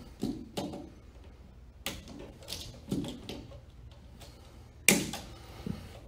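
Hand wire cutters snipping the wires loose from a wall outlet: several sharp clicks and snaps, the loudest about five seconds in.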